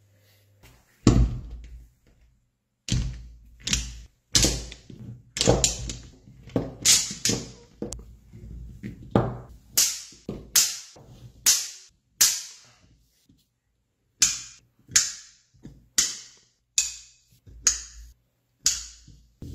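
Neodymium magnet balls snapping and clacking together as they are pulled apart and set into shapes. They make a quick, irregular run of sharp clicks, about two a second, with a short pause partway through.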